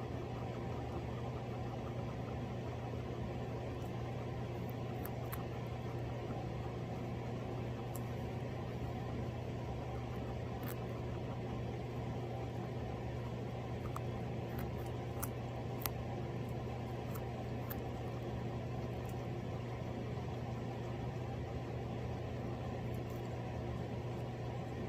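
Steady low hum over even background noise, with a few faint ticks around the middle.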